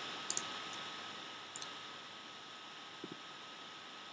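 A few faint computer mouse clicks: a pair about a third of a second in and another at about a second and a half. Under them runs a steady microphone hiss with a faint high hum.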